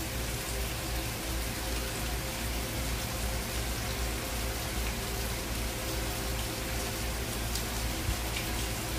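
Steady, even background hiss with a faint low hum, unchanging throughout: room tone.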